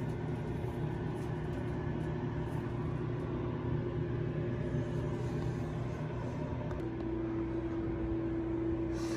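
Steady low machine hum with a held droning tone that grows stronger about seven seconds in.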